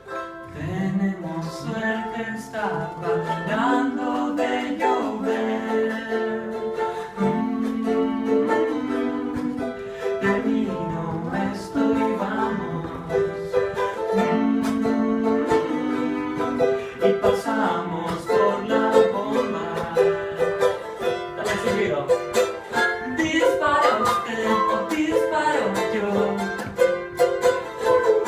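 Live acoustic song: a small plucked string instrument strummed, with a wordless vocal melody carried over it.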